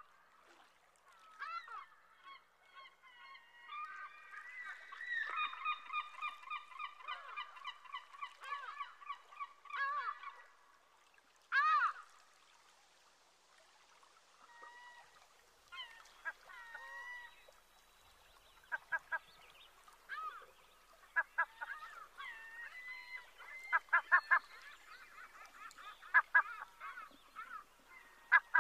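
A flock of geese honking: a dense run of many overlapping honks in the first third, scattered single calls through the middle, and quick bunches of calls in the last third.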